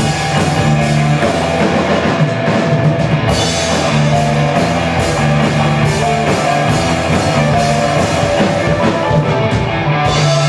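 Live fusion band music: electric guitar, bass guitar and a drum kit playing a steady rock beat, blended with keyboard and Minangkabau traditional instruments.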